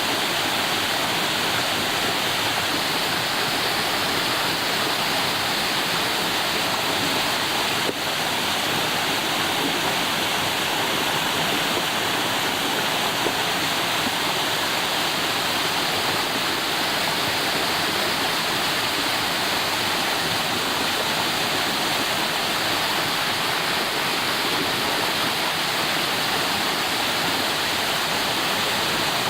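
Steady rushing of a waterfall, its falling water making an even, unbroken roar.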